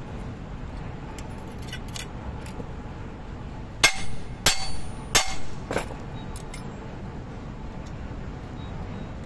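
Steel circlip pliers and circlips clinking against the steel link plates and pins of a reclaimer chain: four sharp metallic clinks, each ringing briefly, in quick succession midway through. A steady low rumble runs underneath.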